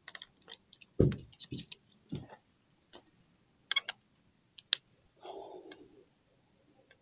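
Hand tools and loose bolts clicking and clinking at irregular moments while the engine's clutch-cover bolts are undone, with a dull knock about a second in and a short rustle a little past five seconds.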